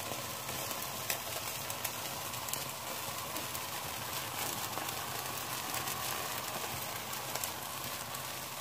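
Skewered chicken tikka pieces sizzling on a wire rack over a gas burner on high flame: a steady hiss with a few faint crackles as the meat browns.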